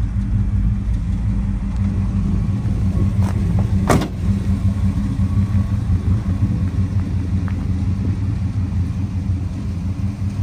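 1983 Dodge Power Ram's V8 engine idling steadily, with a single sharp knock about four seconds in.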